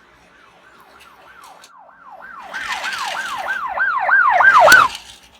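Battery-powered toy police car's electronic siren wailing in quick falling sweeps, about three a second, growing steadily louder, with a noisy rattle joining about halfway through. A sharp click comes just before it cuts off suddenly near the end.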